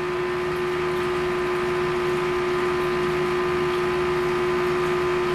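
Steady electrical hum with a constant mid-pitched tone over a hiss, typical of an aquarium air pump or filter running beside the tank.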